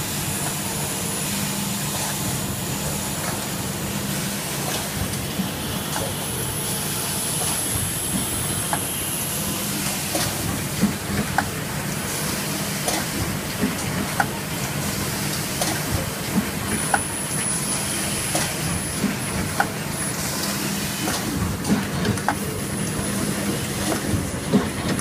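Spaceline II machine running with a steady hum and hiss and occasional high whistling tones. From about ten seconds in, a string of sharp clicks and knocks comes at roughly one or two a second.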